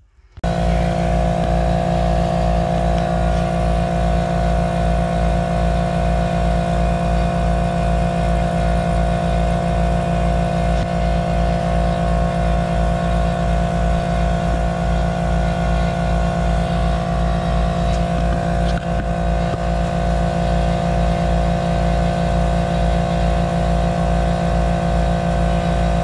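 An engine running steadily with an even low throb, its pitch unchanging throughout.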